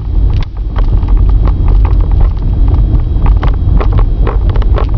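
Car driving, heard from a camcorder mounted inside it: a steady low road rumble with wind buffeting on the microphone, and frequent small clicks and knocks throughout.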